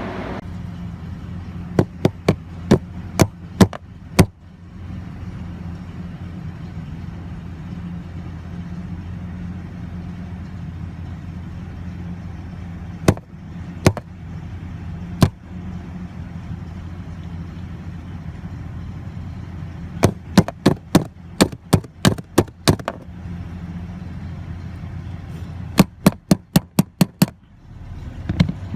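Ford F-150 engine running steadily while its fuel pump inertia switch is tapped in several quick series of sharp knocks, a tap test for a weak switch that cuts the fuel pump. After the last series of taps the running sound drops briefly.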